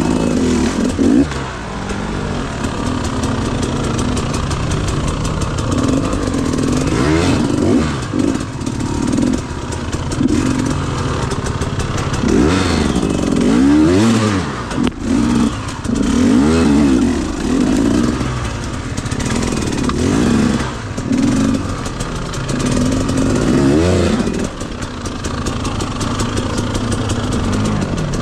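Two-stroke KTM 250 EXC enduro bike engine being ridden over rough ground, the revs rising and falling again and again as the throttle is worked every second or two.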